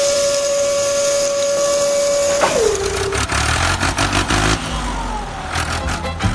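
Small electric motor of a toy dump truck's tipper whining steadily, then winding down with a falling pitch about two and a half seconds in, while sand hisses as it pours out of the tipping bed.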